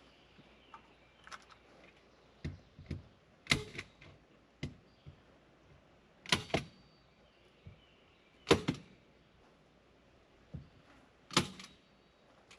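A series of sharp knocks and clacks at irregular intervals, about seven in all, several in quick pairs, from hand work on a door and its fittings.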